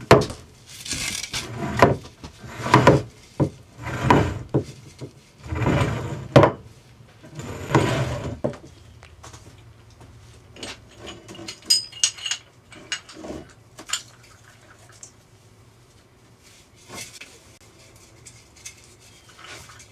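Collapsible kayak anchor, weighted with a bolt on its rope, dragged across a floor in a series of scraping pulls about a second apart. After about nine seconds the scraping stops and only scattered metal clinks and taps follow.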